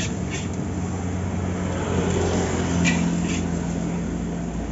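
Metal spatula scraping against a large wok of fried rice a few times, over a steady low mechanical hum.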